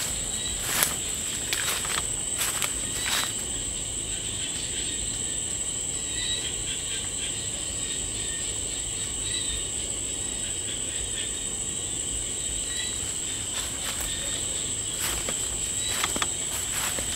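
Crickets and other night insects chirping in a steady high-pitched drone. Footsteps crunch over dry bamboo leaves and litter in the first three seconds and again near the end.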